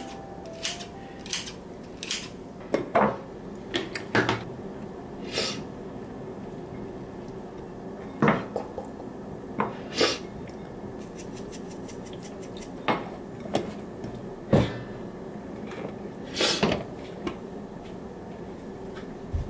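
Kitchen clatter: utensils tapping and clinking against a pan and dishes in scattered single knocks, about fifteen of them at irregular gaps, over a faint steady hum.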